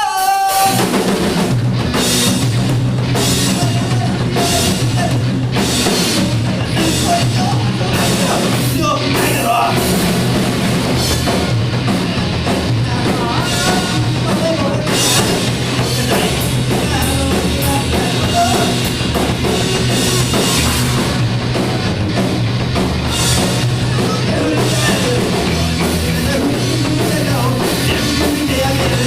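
Rock band playing loud and fast, with drum kit and a heavy low end. It comes in abruptly at the very start and runs at an even loudness throughout.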